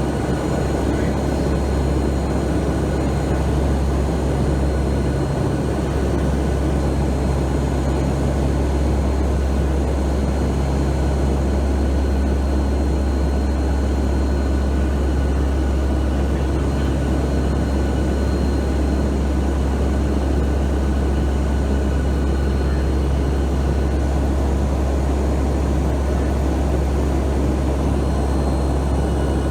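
Steady cabin drone of a NOAA P-3 Orion hurricane hunter's four turboprop engines in flight, a deep hum with faint higher whines held steady throughout.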